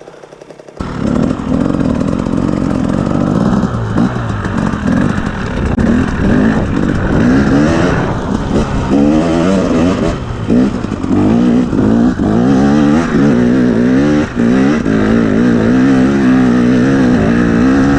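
2017 KTM 250 EXC two-stroke dirt bike engine revving under load, its pitch rising and falling again and again with the throttle. It starts abruptly just under a second in.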